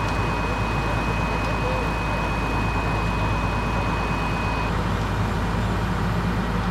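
Fire engine's diesel engine idling close by, a steady low rumble, with a thin high steady tone that stops about two-thirds of the way through.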